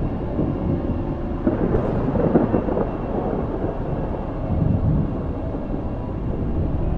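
Steady rain with rolling thunder: a low rumble swells about a second and a half in, and again more softly near five seconds.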